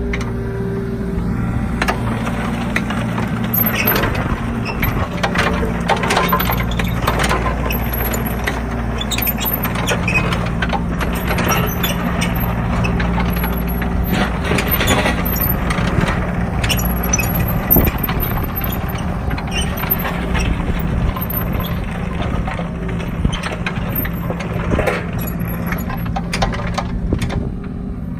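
Kubota mini excavator's diesel engine running steadily while the machine swings, works its boom and travels on its tracks, with frequent clanks and scrapes from the tracks and blade on the gravel.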